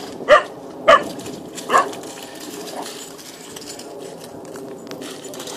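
Irish Setter puppy barking three times in the first two seconds: short, sharp yaps, each dropping in pitch. The steady rush of the shallow stream runs underneath.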